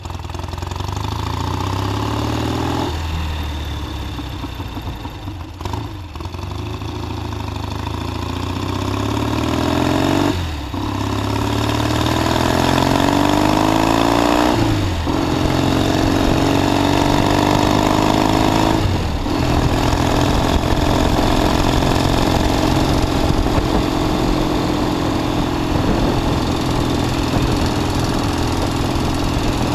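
1969 Triumph T120 Bonneville's 650 cc parallel-twin engine accelerating through the gears, its pitch climbing and then dropping at each of several gear changes. It then runs steadily at cruising speed for the last ten seconds or so.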